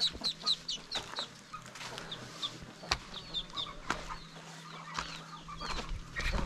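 Newly hatched ducklings peeping: short, high-pitched peeps at about four a second that thin out to scattered peeps after about a second. A couple of sharp clicks sound near the middle.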